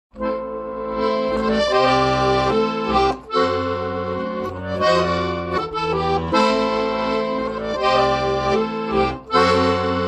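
A Weltmeister bayan (button accordion) playing a song melody over sustained chords and changing bass notes, with brief breaks in the sound about three seconds and nine seconds in.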